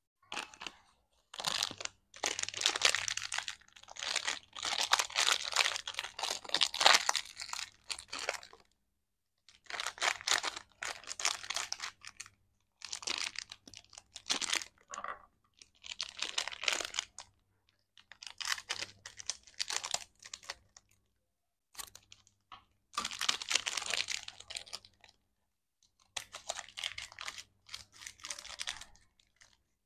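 Plastic candy wrapper crinkling and crackling as hands handle it, in bouts of a few seconds with short pauses between them; near the end, scissors cut into the wrapper.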